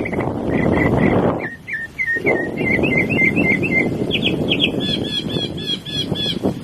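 A mockingbird singing a run of short phrases, each repeated several times before it switches to the next kind, as mockingbirds do when stringing together borrowed sounds. The phrases rise higher in pitch toward the end. A loud low background rush runs underneath and drops away briefly about one and a half seconds in.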